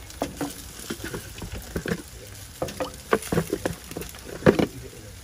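Lumps of jaggery dropped by hand one after another into a nonstick saucepan with a little water, landing with irregular short knocks and small splashes, the loudest about four and a half seconds in.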